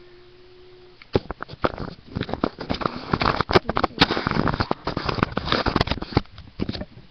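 Webcam microphone handling noise: a dense run of sharp clicks, knocks and crackly rustling as the webcam or laptop is touched and moved close up, then a few scattered clicks near the end.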